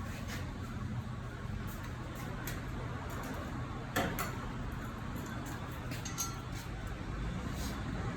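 Light metallic clinks and taps of hand tools and wheel hardware during a tyre change, with a sharper knock about four seconds in, over a steady low hum.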